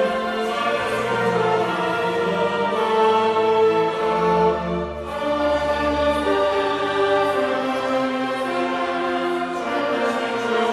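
Mixed choir singing with a youth string orchestra, held chords with a brief break about halfway through before the next chord.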